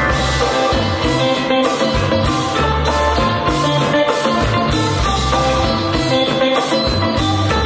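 Live band playing: electric guitar over bass guitar, keyboard, drum kit and congas, with a steady beat and no singing.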